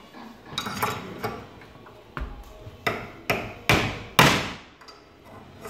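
Five sharp knocks, each ringing briefly, starting about two seconds in and coming roughly half a second apart. The last two are the loudest. Softer clattering comes earlier.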